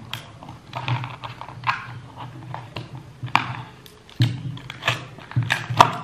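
Cardboard phone box and plastic packaging being handled: a run of irregular clicks, taps and rustles as the box is tilted and an item is pulled from inside, with sharper clicks about three and a half seconds in and near the end.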